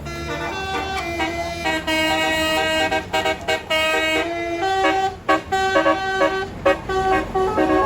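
Tour bus's multi-trumpet 'telolet' musical air horn (basuri type) playing a tune: a run of short, stepped notes with brief breaks between them.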